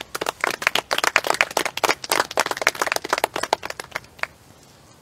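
A small crowd clapping in applause, with separate hand claps easy to pick out. The clapping thins out and ends with a last clap about four seconds in.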